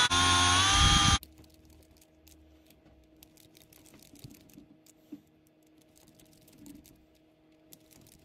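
Cordless power screwdriver driving a screw, its motor whining, then cutting off suddenly about a second in. Faint light clicks of small parts and screws being handled follow.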